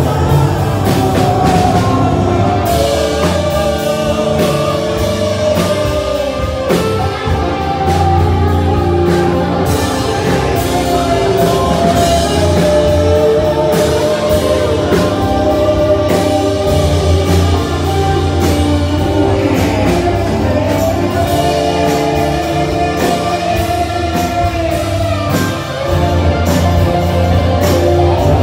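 Live rock band playing loud, with drums, guitar and a lead singer.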